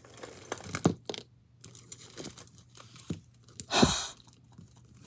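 Small clicks and rustles of a beaded necklace being handled on a tabletop, with one louder handling noise just before four seconds in.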